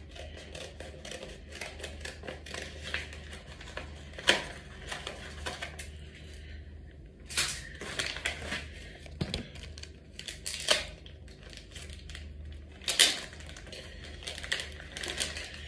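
A paper envelope and the cards inside it being handled by hand: rustling and crinkling with several sharp snaps, the loudest about four and thirteen seconds in, over a steady low hum.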